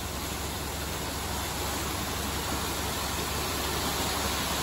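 Wet concrete sliding down a ready-mix truck's metal chute and pouring into a post hole, a steady rushing hiss over the low hum of the truck's running engine.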